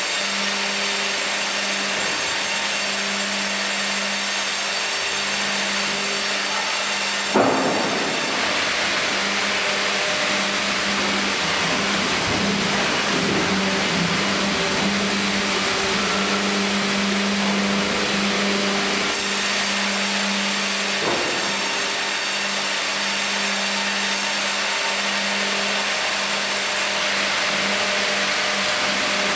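Fimaksan Fi.120 tandem band saw running steadily with a constant hum, sawing a log fed through on the Fi.130 hydraulic carriage. A sharp knock comes about seven seconds in, and a lighter one about twenty-one seconds in.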